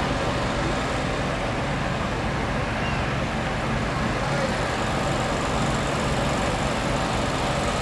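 Steady low hum of running engines beside parked food trucks, over a constant wash of outdoor background noise.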